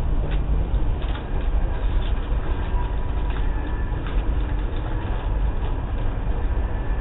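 Steady low rumbling noise through a doorbell camera's small microphone, with a faint steady high tone and a few light ticks.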